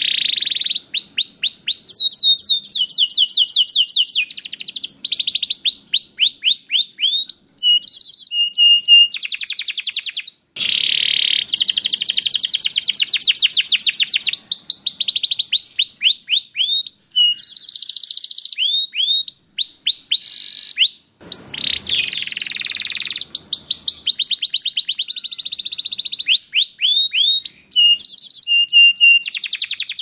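Domestic canary singing a long song of rapid trills: runs of fast, repeated downward-sweeping notes, with brief breaks about ten and twenty-one seconds in.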